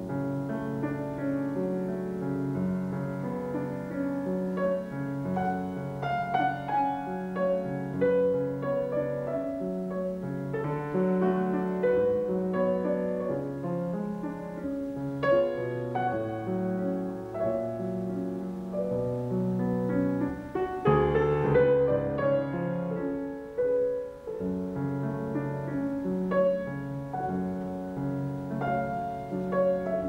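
Steinway grand piano played solo: a classical piece with continuous overlapping notes and chords, swelling to a louder passage about two-thirds of the way through.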